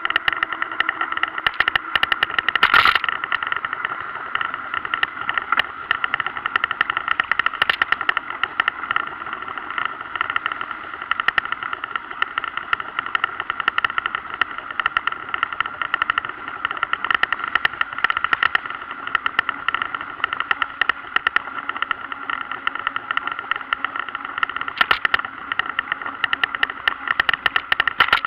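Steady rattling buzz from a camera mounted under a mountain bike's saddle as the bike rolls over town streets, with one sharp knock about three seconds in.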